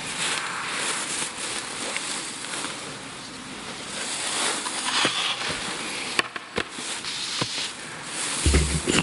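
Handling noise close to a lectern microphone: rustling and crackling as a face mask is taken off and a book's pages are turned, with a few sharp clicks and a dull thump near the end.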